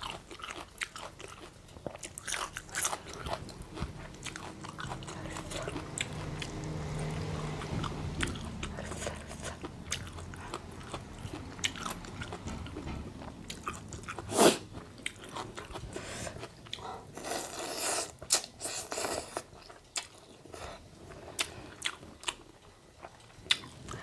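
Close-miked eating of a spicy seafood instant-noodle salad: chewing and biting with scattered crisp crunches and wet mouth sounds. One sharp crunch stands out about halfway through.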